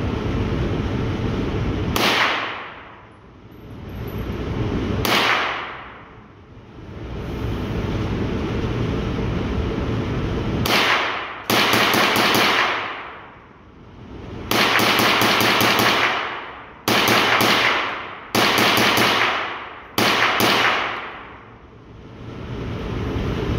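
Gunshots from an Anschutz MSR RX22 semi-automatic .22 LR rifle: a few single shots seconds apart, then several quick strings of shots fired in rapid succession. A steady background hum dips after each volley and swells back.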